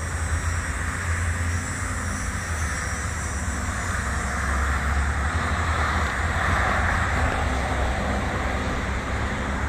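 Road traffic on a busy street: a steady rush of passing cars over a deep rumble, swelling as vehicles go by about four to eight seconds in.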